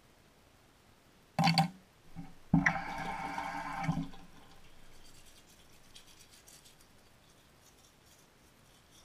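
A short knock, then a bathroom sink tap runs for about a second and a half as a toothbrush is wetted under it and is shut off. Faint scrubbing of teeth being brushed follows.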